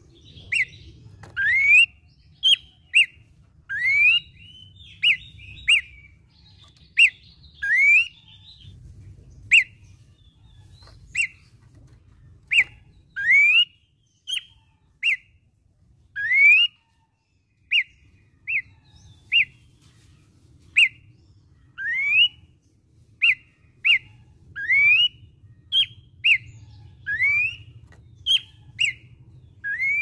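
Horsfield's babbler (pelanduk semak) singing: a steady series of clear whistled notes, roughly one a second. Short clipped notes alternate with longer slurred whistles that rise in pitch.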